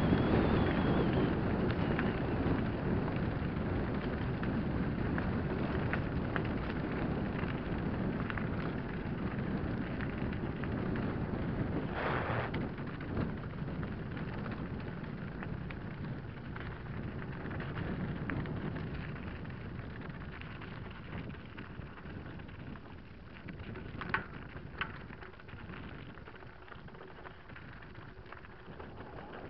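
Mountain bike rolling fast down a loose gravel track: wind buffeting the camera microphone and tyres crunching and rumbling over stones, gradually getting quieter. A couple of sharp clicks ring out late on.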